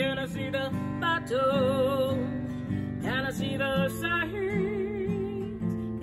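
A woman singing with vibrato on held notes, accompanied by a strummed acoustic guitar.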